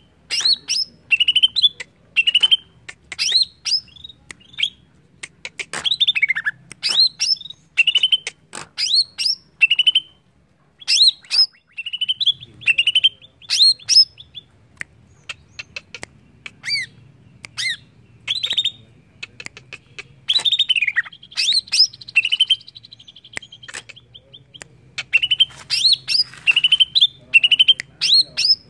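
Cucak ijo (greater green leafbird) singing: rapid bursts of sharp, sweeping whistled notes, with a brief pause about a third of the way through.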